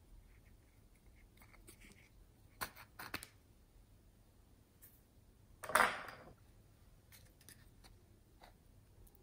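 Small plastic containers being handled: a few light clicks and taps, then one louder brief scrape about six seconds in.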